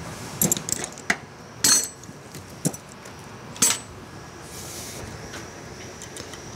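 A few sharp metallic clinks and taps, spaced roughly a second apart in the first four seconds, from metal parts and tools being handled.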